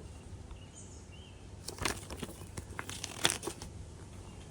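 Handling noise: rustling and a few sharp clicks as the inflator's parts and packaging are moved, in two short bursts, about two seconds in and again a little after three seconds.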